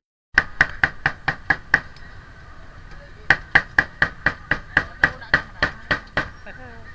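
Meat cleaver chopping grilled meat on a thick wooden chopping block. It makes sharp, evenly paced chops: a quick run of about seven, a pause, then a longer run of about a dozen at roughly four a second.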